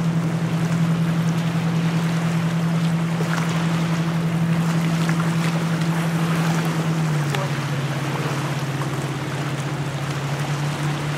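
Motorboat engine droning steadily, dropping to a lower pitch about seven seconds in, over wind and breaking surf.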